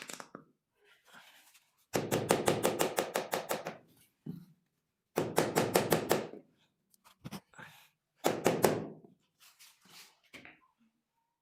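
Rapid, evenly spaced tapping on a large ceramic floor tile, about seven taps a second, in three runs of one to two seconds, as the tile is bedded into its mortar.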